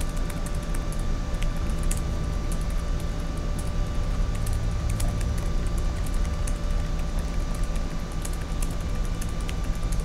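Office ambience: a steady low rumble and faint electrical hum under scattered, irregular computer-keyboard clicks.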